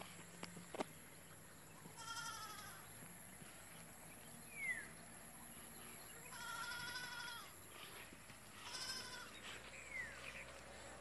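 A goat bleating three times, each call a wavering, quavering tone. A bird gives a short falling whistle twice between the calls.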